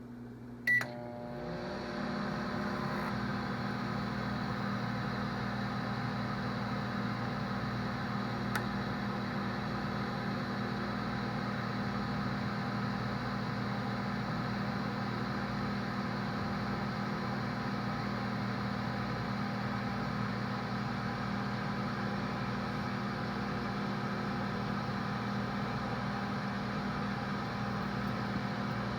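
Microwave oven: a short beep about a second in, then it starts up, the hum and whir building over about a second to a steady run.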